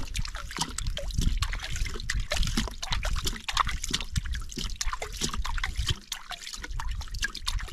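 Water sloshing and trickling at an ice-fishing hole, with many small irregular splashes and drips, easing briefly about six seconds in.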